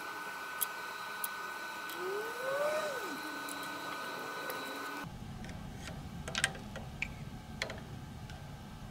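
Light clicks and clinks of small steel nuts, spacers and a bolt being handled with pliers in plastic trays. They sound over a steady high whine that stops suddenly about halfway through and gives way to a low rumble, with a few sharper clicks near the end.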